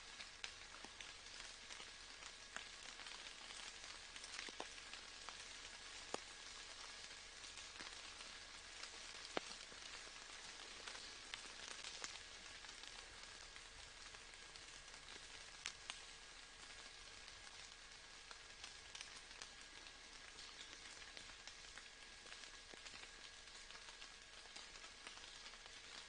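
Soft, steady rain: an even hiss of falling rain with scattered louder ticks of single drops.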